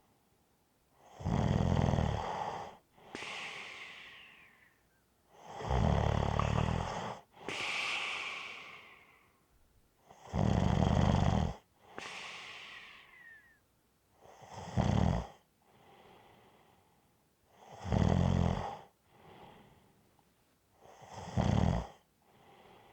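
Snoring in a slow, regular rhythm: six low, buzzing inhalation snores about every three and a half to four seconds. The first three are each followed by a long breathy exhale that falls in pitch, and the last three snores are shorter.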